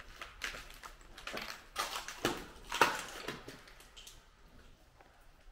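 Irregular crunching scuffs and knocks of footsteps moving over debris, a handful of steps with one sharp knock about three seconds in.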